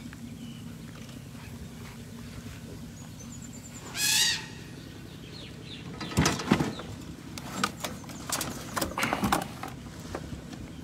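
Elephants chewing pumpkin and cucumber: a run of loud, sharp crunches starts about six seconds in and lasts some three seconds. About four seconds in there is a short, high, warbling call.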